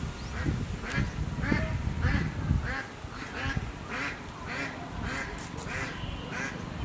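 A run of short animal calls repeating about twice a second over a steady low rumble.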